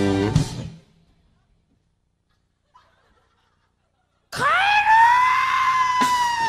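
A live rock band breaks off abruptly into a pause of near silence. After it a long, high scream rises steeply in pitch and then slowly falls over a held low note, and the band starts back in at the very end.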